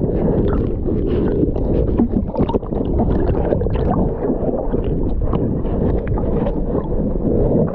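Lake water sloshing and bubbling around a partly submerged camera as a swimmer moves beside it, heard muffled, with many small splashes and knocks throughout.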